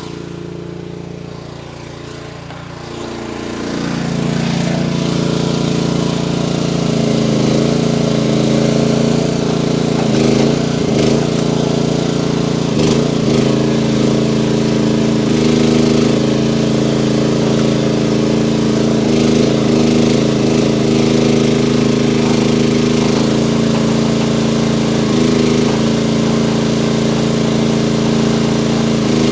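A mini-excavator's diesel engine running hard. Its pitch shifts in the first few seconds and it grows louder about four seconds in as it is throttled up. It then holds steady, with brief dips in pitch as the hydraulics take load while the grapple works.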